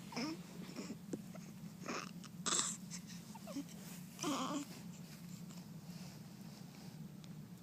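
A few short little vocal sounds, squeaks and grunts, four of them in the first half, over a steady low hum.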